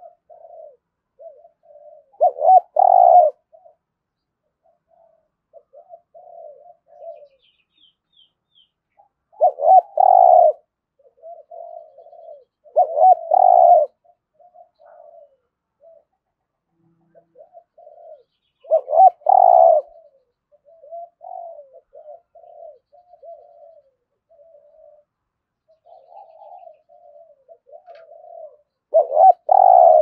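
Spotted dove cooing in a deep, low-pitched 'thổ' voice: five loud coo phrases, each about a second long and spaced several seconds apart, with soft, low bowing coos running between them.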